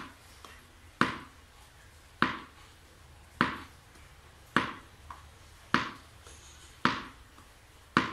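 Tennis ball bounced on a hard floor, about one bounce a second in an even rhythm, seven sharp bounces each with a short ring in the room.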